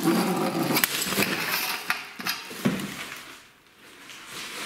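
Rummaging through a pile of leftovers and pulling out a galvanised steel drywall guide-rail offcut: rustling with light metallic clinks and knocks, fading out after about three seconds.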